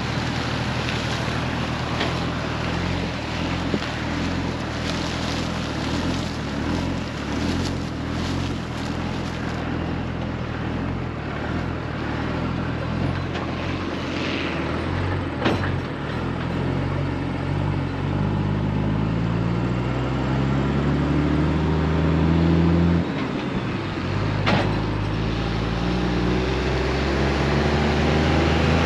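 Heavy farm diesel engine running steadily, then pulling harder: its pitch climbs for several seconds, drops suddenly, and climbs again near the end, as when accelerating through a gear change.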